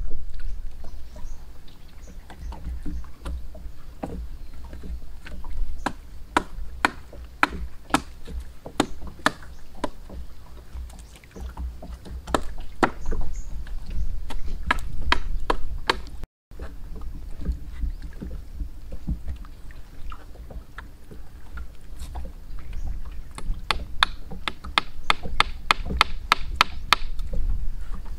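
A machete blade chopping and hacking at a curved wooden stick: sharp wooden knocks at an uneven pace, quickening to several a second near the end, over a steady low rumble.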